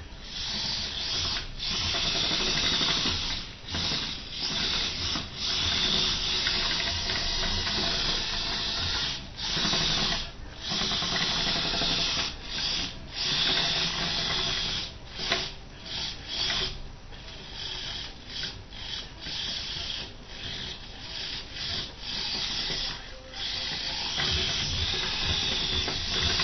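Small electric gear motors of a 3D-printed RC bulldozer whirring in short runs, stopping and starting again many times, a little quieter for a stretch past the middle.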